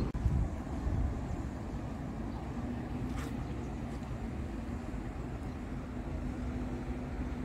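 Street traffic: a steady low rumble of passing vehicles, with a faint steady hum joining about two and a half seconds in and a short hiss about three seconds in.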